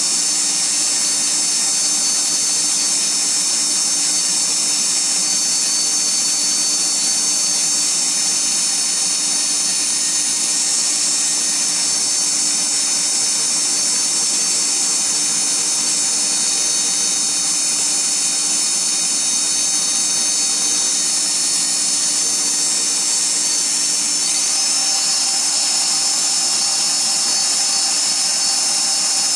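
Electric rotary tool (flex shaft or Dremel-type) spinning a fine polishing wheel against the soldered seam of a sterling silver bead, a steady high whine, its tone shifting slightly late on.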